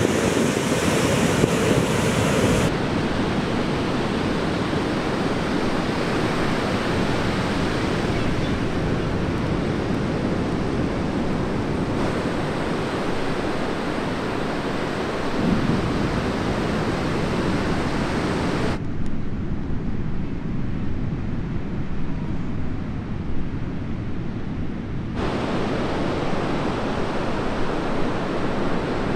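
Heavy surf from a hurricane swell: a steady wash of breaking waves with wind buffeting the microphone. The character of the noise changes abruptly about three seconds in and twice more later, where separate recordings are spliced together.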